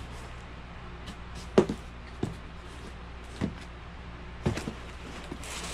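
Small cardboard boxes being picked up and set down on a table: four or so short dull knocks, the loudest about a second and a half in, over a steady low hum.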